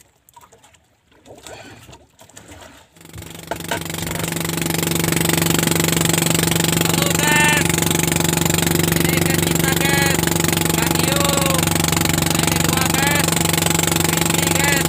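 Small fishing boat's motor running steadily at an even speed, coming in about three seconds in and holding constant, with a few short voices over it.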